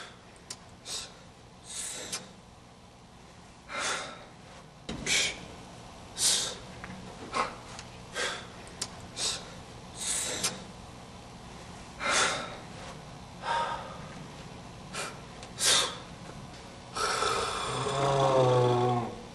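A person's short, noisy breaths or snorts, one every second or two. Near the end comes a drawn-out wavering voice sound, the loudest part.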